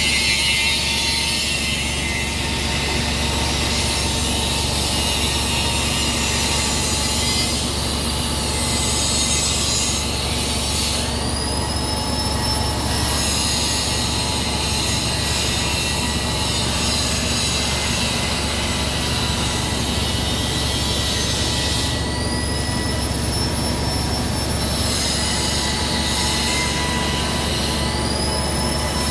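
Okuma Howa milling machine running on its hydraulic system: a steady low hum and drone. Three times a high whine rises, holds for a second or two and then eases back down, the last one rising near the end.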